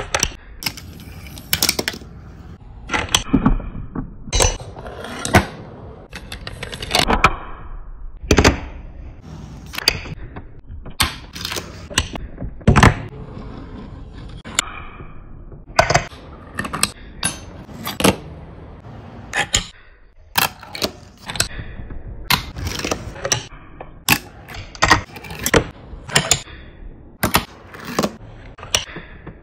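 Fingerboard being popped, flipped and landed on a desktop ledge and table: many irregular sharp clacks and taps of the small deck and trucks striking the surface, with the wheels rolling between them.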